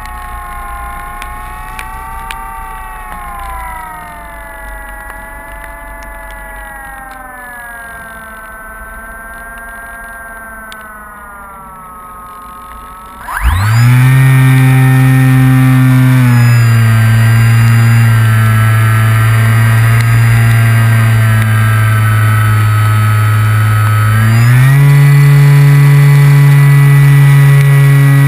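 RC electric glider in flight, heard from its onboard camera. For the first half there is a wavering, siren-like whistle that rises and falls slowly. Then, a little under halfway through, the electric motor and propeller come on suddenly and run loud and steady, dropping slightly in pitch a few seconds later and rising again near the end.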